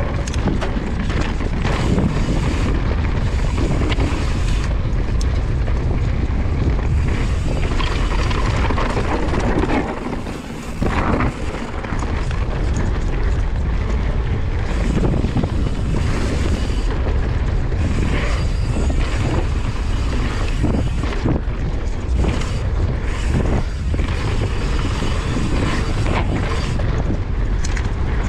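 Yeti SB150 enduro mountain bike descending a dirt singletrack: tyre rumble and the bike's chain and frame rattling over bumps, under heavy wind noise on the on-board action camera's microphone. The level dips briefly about ten seconds in.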